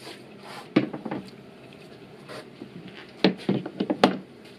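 A few sharp knocks and clatters of hand tools being handled in a plastic parts tray. One cluster comes about a second in, and a quicker run of knocks comes near the end.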